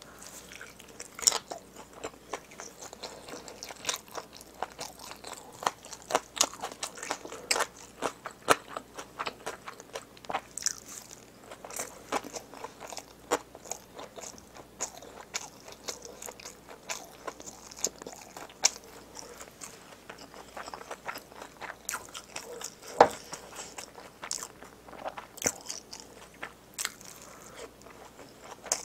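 Close-miked chewing of a mouthful of egg-roll gimbap, with wet mouth clicks and smacks coming irregularly several times a second; two sharper clicks stand out, one about a second in and one near the end.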